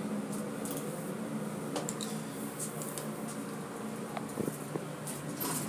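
Elevator car running with a steady low hum, with a few faint clicks and knocks.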